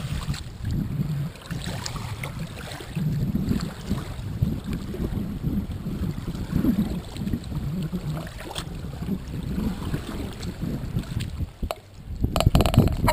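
Gusty wind rumbling on the microphone over choppy river water lapping at a sandy bank, with a louder crackling rush near the end.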